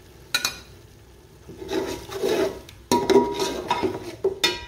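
A metal slotted spatula stirring and scraping through tomatoes, green chillies and spices in an aluminium pot, with sharp clinks of metal against the pot, the loudest about three seconds in, ringing briefly.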